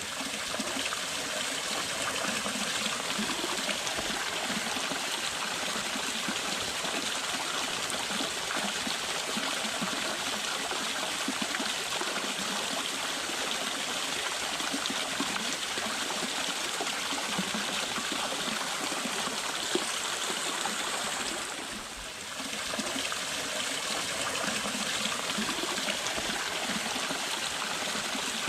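Water of a small waterfall flowing and splashing steadily over rocks. It dips briefly once, about three-quarters of the way through, then carries on.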